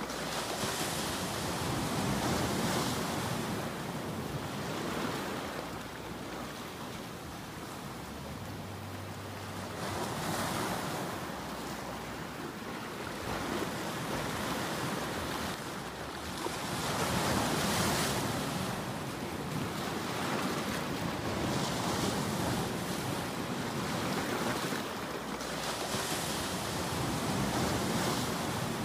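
Ocean surf: waves breaking and washing in, swelling and easing every few seconds.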